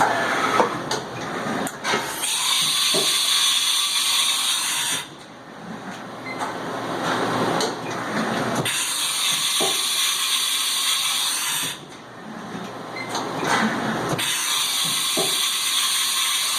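Haas VF-2's fourth-axis (A-axis) rotary unit indexing three times: each index is a hiss of about three seconds, with quieter gaps and a few clicks between.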